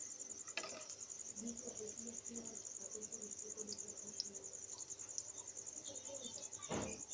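Chicken nuggets frying in a pan of shallow oil, with small ticks and a short knock of a metal spatula against the pan near the end as the nuggets are lifted and turned. A steady, high, rapidly pulsing trill runs underneath throughout.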